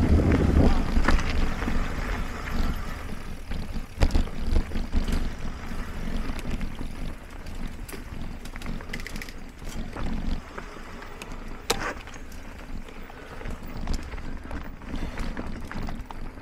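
Mountain bike rolling over a dirt and root singletrack: a rumble of tyres and wind on the microphone, with scattered knocks and clatters from bumps. The rumble eases after about ten seconds.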